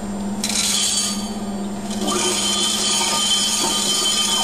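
Small steel rivets rattling and clinking as they are tipped into the top of a riveting machine's rivet-feed hopper, in two spells, over a steady low hum.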